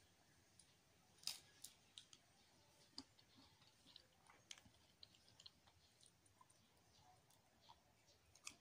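Faint, scattered crunches and clicks of someone eating in-shell peanuts, with a sharper crack about a second in and a few more through the rest.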